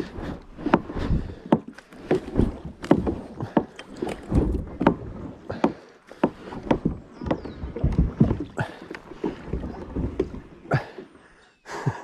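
Plastic kayak being paddled through shallow water: irregular paddle splashes mixed with frequent sharp knocks and clicks of the paddle and hull against sticks and snags.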